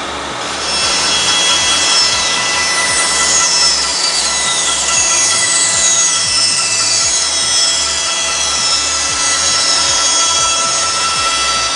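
Band saw switched on at the start and running, its blade cutting steadily through a wooden board from about a second in; a continuous sawing noise over the motor's steady tone.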